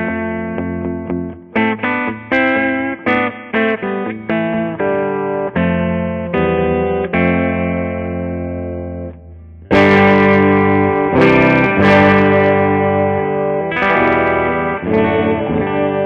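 Electric guitar through an amplifier, sounding on its Lace Alumitone bridge pickup in humbucking mode: a run of picked notes and chords, then about ten seconds in, louder ringing strummed chords.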